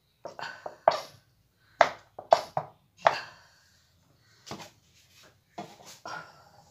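Irregular knocks and clinks of steel kitchenware and utensils being handled, about nine in all, some ringing briefly.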